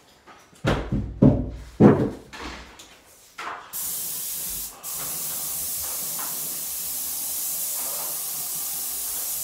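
Several heavy wooden knocks and thumps as a plywood cabinet part is put down and handled. Then a paint spray gun starts spraying primer with a loud, steady hiss. The hiss breaks off briefly about a second after it starts and then runs on.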